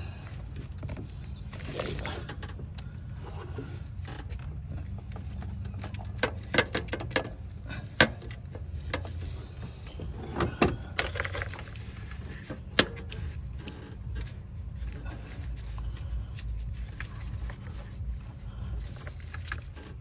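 Scattered sharp clicks and short rattles of plastic wiring clips and a corrugated harness loom being worked free by hand in an engine bay, over a steady low hum.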